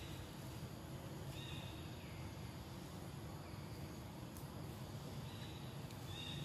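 Outdoor ambience: steady background noise with a low hum, and two brief high-pitched calls, one about a second and a half in and another near the end.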